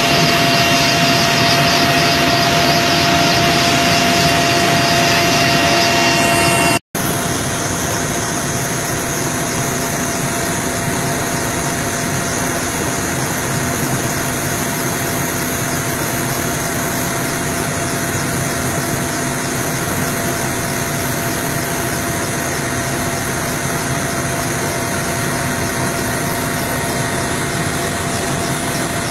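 Loud, steady engine whine and rotor noise of a hovering helicopter, heard from inside the cabin at the open door. The sound cuts out for an instant about seven seconds in, then carries on a little quieter.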